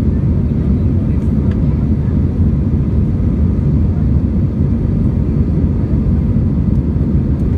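Airbus A319 jet engines and airflow heard inside the passenger cabin as a steady, dense low rumble.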